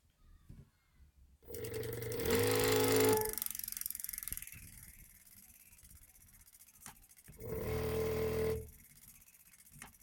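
Electric bike hub motor on an Infineon 6-FET controller humming twice when powered, each time a steady high-pitched hum with a hiss for one to two seconds, then cutting off. This hum without turning is what the motor does when the phase and Hall-sensor wires are in a wrong combination.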